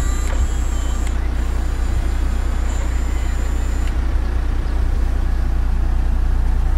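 2012 Mitsubishi Montero Sport's engine idling, a steady low hum heard from inside the cabin.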